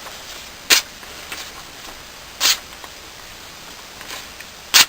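Three short swishing strokes of a Gerber liner lock folding knife's blade, about two seconds apart, with the last the loudest.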